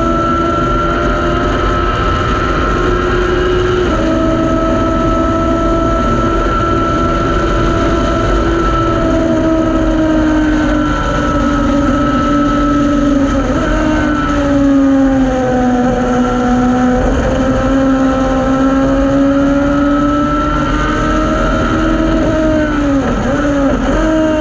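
Thunder Roadster race car's engine running hard at steady high revs along a straight, then falling in pitch as the car slows, with quick dips near the end as it brakes and downshifts for a corner. Wind rush in the open cockpit runs underneath.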